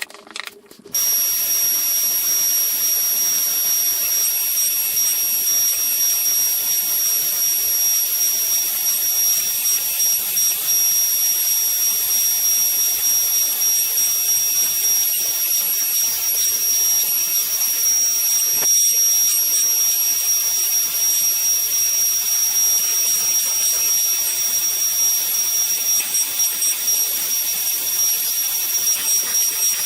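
Woodworking power tool's motor starting about a second in and running steadily, a high whine over a loud hiss.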